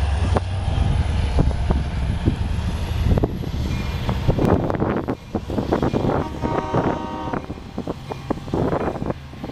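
LIRR diesel locomotive running as a passenger train departs: a low engine drone that eases after about three seconds, with scattered knocks and clatter and a brief pitched tone about seven seconds in.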